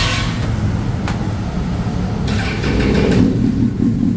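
Honda CBR1000RR's inline-four engine running at idle through a loosely fitted racing exhaust, swelling slightly about two and a half seconds in. A sharp metal click about a second in.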